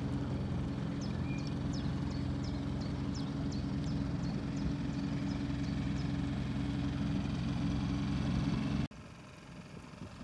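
Outboard motor running steadily at a constant speed, then cutting off abruptly near the end.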